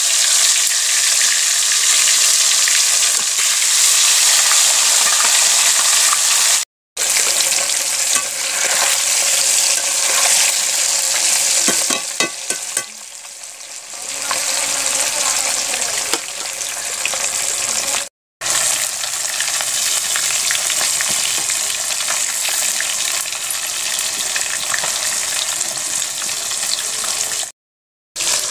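Masala-coated fish pieces shallow-frying in hot mustard oil in a kadai, a loud steady sizzle. It dips for a moment about halfway and cuts out completely for a split second three times.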